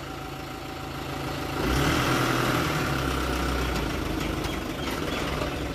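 Truck's diesel engine running, then revving up about one and a half seconds in as the truck pulls away, with a deeper rumble that eases off slightly toward the end.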